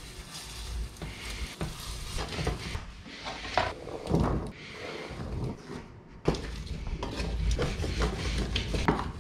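Food sizzling in a stainless steel frying pan, with irregular scrapes and knocks as the food is stirred and moved around; the loudest knocks come a few seconds in, and there is a short lull about six seconds in.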